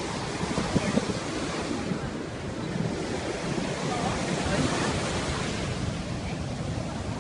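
Surf washing on a beach with wind rumbling on the microphone, a steady rushing noise that swells a little midway.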